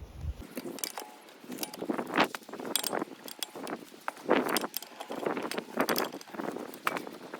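Small metal objects clinking and jangling as they are handled, in irregular clatters roughly once or twice a second.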